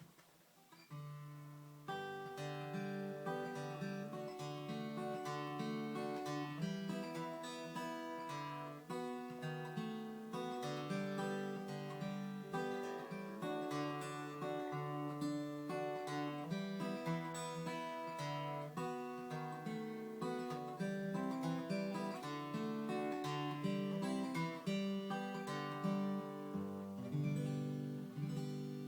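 1981 Yamaha FG340 Mark 1 acoustic guitar being fingerpicked: a continuous pattern of plucked single notes over bass notes, starting about a second in and dying away near the end.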